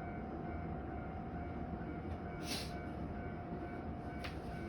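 Steady low rumble of a train running, under a constant hum, with a short hiss about two and a half seconds in and a click near the end.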